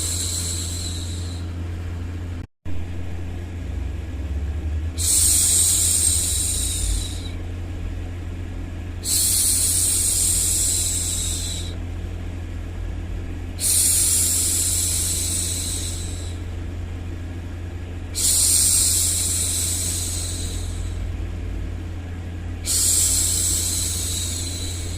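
A woman's voice making long hushing 'shhh' sounds to soothe a baby, repeated about every four and a half seconds, each swelling and then fading over about two seconds. A steady low hum runs underneath, and the sound cuts out for an instant a few seconds in.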